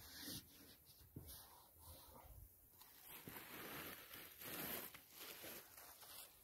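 Faint rustling, crinkling and peeling of plastic film, typical of the backing being pulled off a waterproofing membrane as it is laid down.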